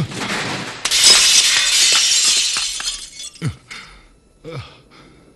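Glass shattering: a window breaks suddenly about a second in, with the breaking glass rattling and tinkling for about two seconds before it fades. A few short, low, falling sounds follow near the end.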